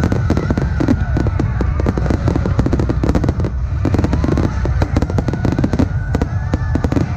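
Starmine fireworks barrage: a rapid, unbroken run of bangs and crackling shell bursts over a steady low rumble.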